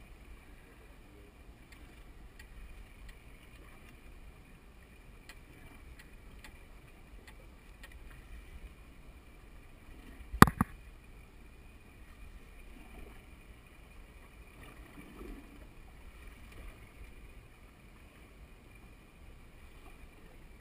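Steady low rumble and water noise of a boat at sea, with faint scattered ticks and one sharp, loud knock about halfway through.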